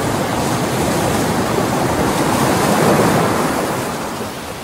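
Ocean surf: a rush of breaking waves that swells to a peak about three seconds in and then fades.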